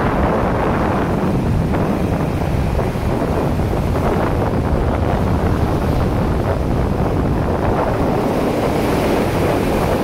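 Ocean surf breaking and washing up a sandy beach, with wind buffeting the phone's microphone. Near the end a wave rushes in close with a brighter, hissier wash of foam.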